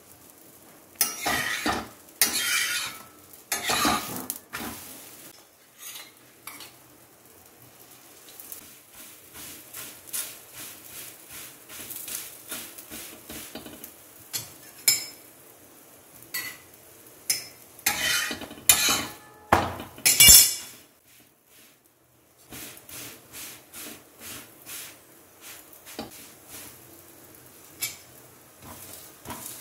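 Metal spatula clattering and scraping against an iron tawa while a stuffed paratha is turned and pressed. There are two bouts of loud clatter, about a second in and again around eighteen to twenty seconds in, with scattered lighter clicks and scrapes between.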